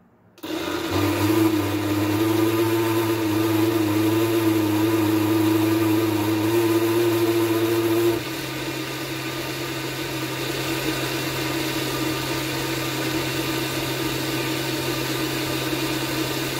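Countertop blender motor switched on about half a second in, blending a thick tomato sauce with tomato paste. About halfway through its tone changes and it drops a little in level, then it runs steadily on.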